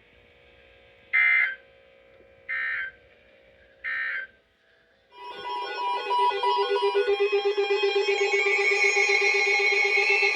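NOAA Weather Radio end-of-message signal: three short buzzing EAS data bursts about a second and a half apart, closing the broadcast statement. About five seconds in, a loud, steady electronic alarm tone with several pitches starts and holds.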